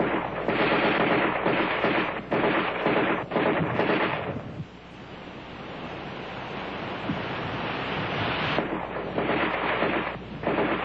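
AR-10 rifle in sustained automatic fire, a continuous dense roar of shots broken by short pauses between bursts in the first few seconds and again near the end. In the middle the fire is quieter and steady, growing louder toward the end of that stretch.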